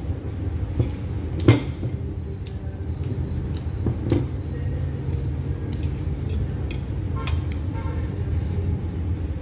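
Clinks and knocks of tableware on a restaurant table, the loudest about a second and a half in and another around four seconds, over a steady low rumble.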